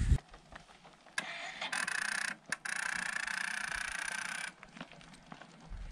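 Motorcycle electric starter whirring in two attempts, about a second and then about two seconds, stopping abruptly each time without the engine catching; the rider suspects a run-down battery.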